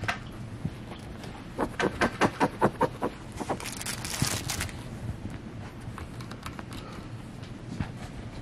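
A beagle puppy playing with plush toys on a quilted couch: a quick, even run of about eight short, sharp sounds about two seconds in, then a brief crinkling rustle.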